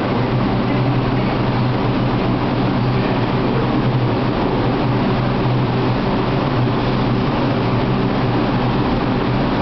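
R142 subway train standing in the station with its doors open, giving a loud, steady, even hum with a low drone.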